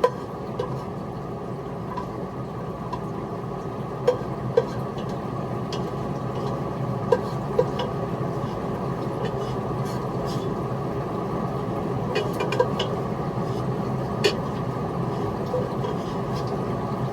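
Glass bowls and a serving utensil clinking sharply now and then as food is dished into the bowls, over a steady low hum.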